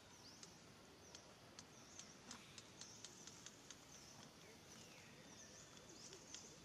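Near silence in the open: many faint, short, high chirps repeat throughout, with scattered soft ticks over a low hiss.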